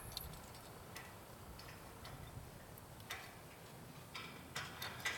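Faint, irregular clicks and ticks, a handful spread over a few seconds, with a small cluster near the end, over a quiet outdoor background.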